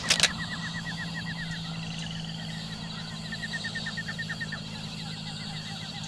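Rural night ambience: a fast series of short high chirping calls, several a second, over a low steady hum. Two sharp knocks sound right at the start.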